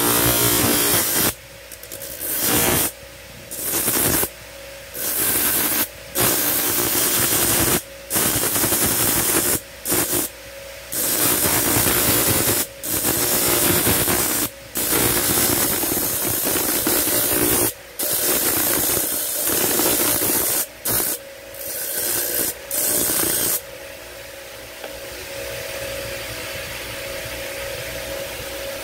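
Motor-driven grinding disc grinding a small steel blank held in pliers: a loud harsh rasp that cuts out and starts again every second or two as the piece is pressed to the disc and lifted off. For the last few seconds the piece stays off and only the grinder runs on, quieter.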